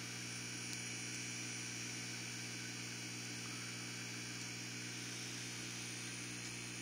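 Steady hum and hiss of running aquarium equipment, with air streaming up through a bubble wall in the tank.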